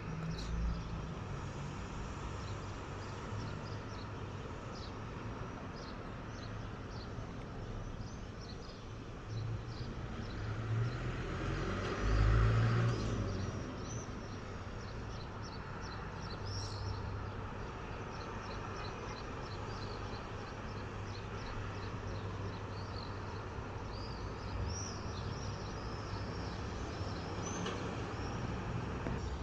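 Common swifts giving many short, high-pitched screams throughout, over a steady background rumble of traffic; a louder vehicle passes about ten to thirteen seconds in.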